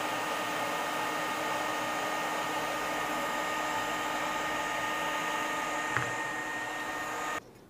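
Hot air rework station blowing steadily: a hiss with a faint steady whine, shut off suddenly near the end.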